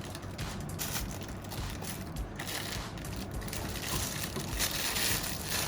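Packaging rustling and crinkling continuously as it is handled and pulled open by hand to take out a condenser microphone.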